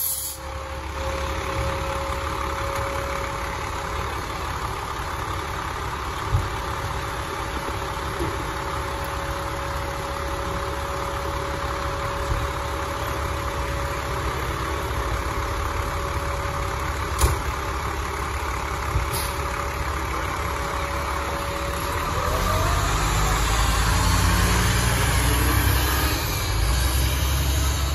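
Fire truck's diesel engine running steadily at idle, with a steady thin whine over it and one sharp knock about two-thirds of the way in. Near the end the engine gets louder as the truck pulls away.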